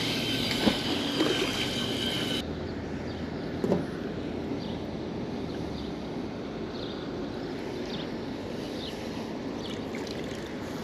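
Water sloshing and lapping beside a dock, a steady watery hiss. A brighter hiss drops away abruptly a couple of seconds in, and there is one knock nearly four seconds in.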